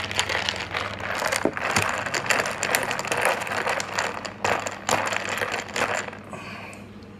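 A metal spoon stirring ice cubes in a glass of iced egg coffee: fast, continuous clinking and rattling that stops about six seconds in.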